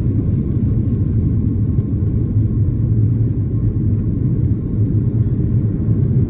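Inside the cabin of a Boeing 737-800 at takeoff: its CFM56-7B turbofan engines running at full takeoff power, a steady deep rumble with a faint steady hum above it.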